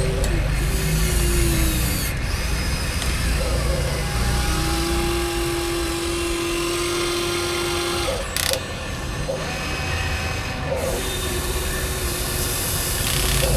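Electric motors of radio-controlled toy excavators and a wheel loader whining as the machines work, the pitch sliding down early on and then holding steady for a few seconds. There is a brief clatter about eight seconds in.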